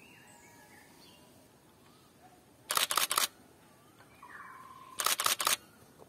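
Nikon D5300 DSLR shutter firing in two quick bursts of several clicks each, about three seconds in and again about five seconds in. Faint bird chirps sound in the background.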